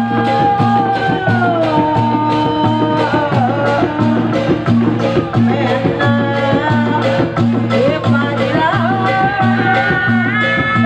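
Live Sundanese bangreng music: a steady drum beat under a melody line that slides down about two seconds in and wavers near the end, over a sustained low drone.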